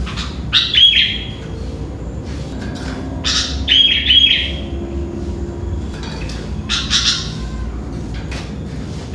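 Sooty-headed bulbul (kutilang) calling in three short bursts of quick, sliding notes, a few seconds apart, over a steady low background rumble.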